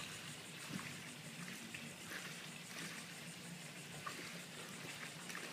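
Faint steady hiss with a few light ticks scattered through it.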